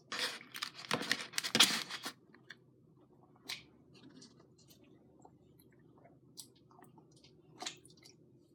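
Close-up eating sounds: a dense burst of chewing and mouth noises for about the first two seconds, then scattered small smacks and clicks.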